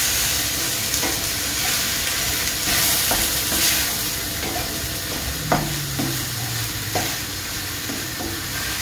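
Ground beef and tomatoes sizzling in a stainless steel frying pan while a wooden spatula stirs and scrapes through them. A couple of sharp knocks of the spatula against the pan come about halfway through and near the end.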